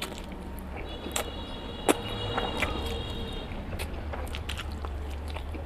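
Close-up chewing and gnawing on a curried chicken leg bone: scattered sharp crunches and clicks of teeth on bone and meat, the loudest crunch about two seconds in.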